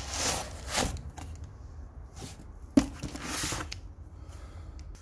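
Foam packing insert and cardboard box being handled: bursts of rustling and scraping, with one sharp click a little under three seconds in.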